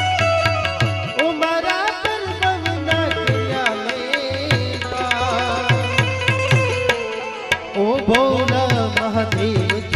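Live Indian devotional bhajan music: tabla strokes keep a steady rhythm with deep bass-drum thuds, under a harmonium and an Indian banjo (bulbul tarang) melody with sliding, wavering notes.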